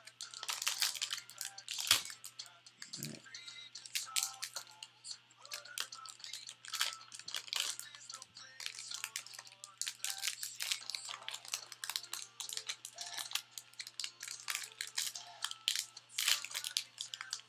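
Trading-card box and pack packaging being handled and torn open: a dense run of crinkling and crackling with small clicks. Quiet background music plays under it.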